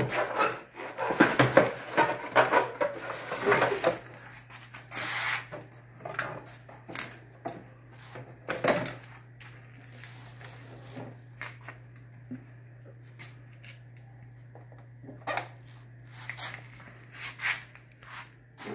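Knocks, clatter and scraping of a plastic riffled sluice box being lifted and handled, busiest in the first few seconds and then occasional knocks, over a low steady hum.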